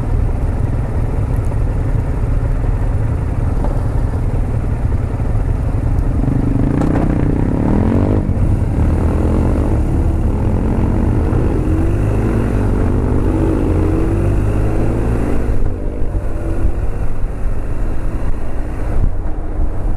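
Motorcycle engines idling at a stop, then pulling away: several rising revs through gear changes from about six seconds in, over a steady low engine rumble.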